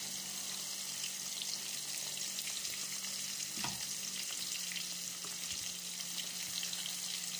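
Fish frying in hot oil in a pan: a steady sizzle, with metal tongs knocking against the pan as the fish is turned, one sharper knock about halfway through.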